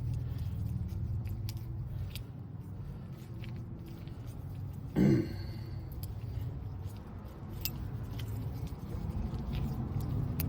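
Faint clicks and scrapes of a key being worked in a stiff new car door lock cylinder, where it is stuck and won't come out, over a low steady hum. A short vocal sound, like a grunt, about five seconds in.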